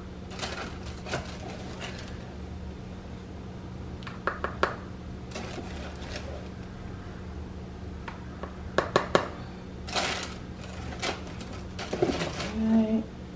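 Plastic measuring cup scooping dry waffle mix out of the box's paper liner: scattered scrapes, rustles and light knocks, over a steady low hum.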